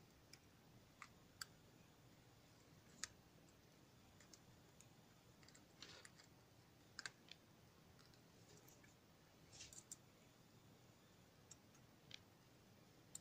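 Near silence broken by faint, irregular small clicks and taps: alligator-clip test leads being handled and clipped onto a small LED board.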